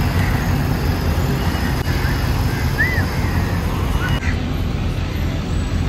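Steady low engine rumble with road-traffic noise, and one short high chirp about three seconds in.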